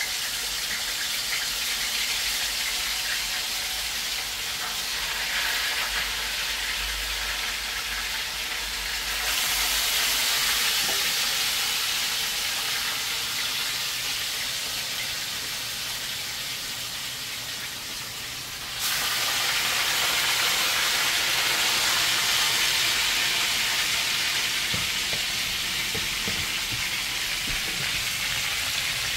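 Tilapia frying in hot oil in a frying pan: a steady, dense sizzle that jumps louder suddenly about nine seconds in and again near nineteen seconds, as more fish pieces go into the oil.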